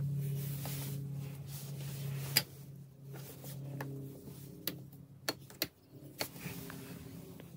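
A loud sharp click a little over two seconds in, then several lighter clicks as a metal toggle switch on a 12 V actuator switch box is handled and flipped. A steady low hum underneath stops about four seconds in.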